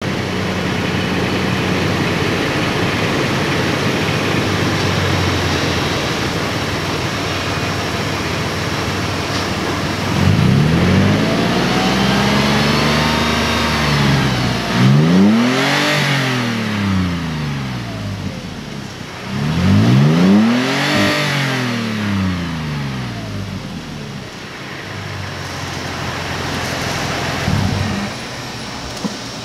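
2016 Toyota 4Runner's 4.0L 1GR V6 exhaust note through a straight-through Magnaflow muffler mid-pipe. The engine starts and idles steadily, then is revved three times, rising and falling in pitch each time, before settling back to idle.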